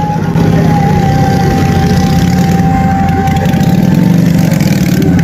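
Motorcycle engine running at idle with a rapid, steady firing beat, getting louder about half a second in.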